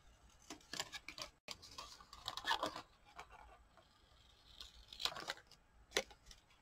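Faint paper rustling and crinkling as a printed card is handled and cut, in scattered bursts, with a short sharp scissor snip near the end.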